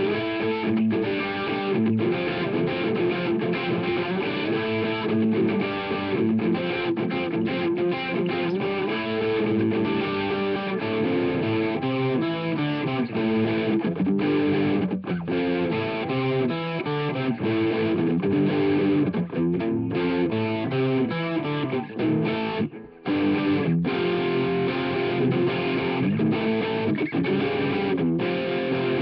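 Red double-neck electric guitar played continuously, a steady run of riffs and chords, with one brief break about three-quarters of the way through.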